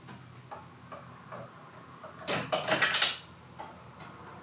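Light metallic clicks and knocks, scattered at first and then a quick cluster about two and a half to three seconds in, as the Impala's intermediate steering shaft is worked loose from the steering rack's pinion, where it is catching a little on the rubber boot.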